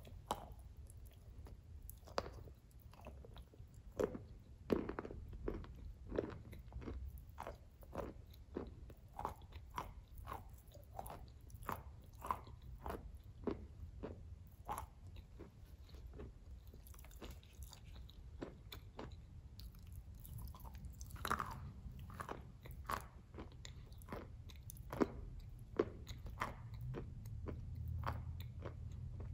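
Close-up crunching and chewing of a hard, chalky green slab sold as a 'glaze tile': irregular sharp crisp cracks, sometimes several a second, over a low steady hum.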